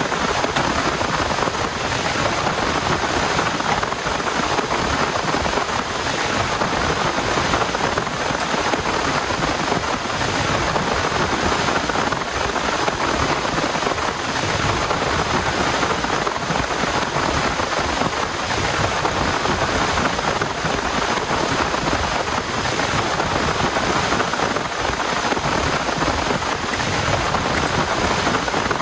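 Heavy rain falling steadily, a dense even patter of drops with no letup.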